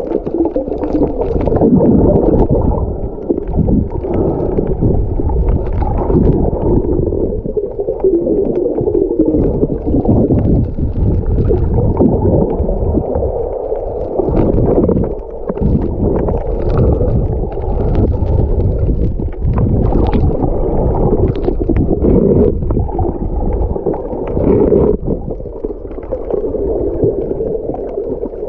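Muffled underwater water noise: continuous rushing and gurgling, with faint scattered clicks.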